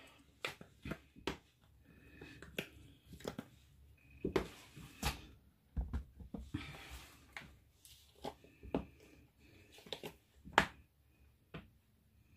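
Black melt-and-pour soap tires being popped out of a mold and set down on a marble slab: scattered light clicks and knocks with soft handling noise, the sharpest about ten and a half seconds in.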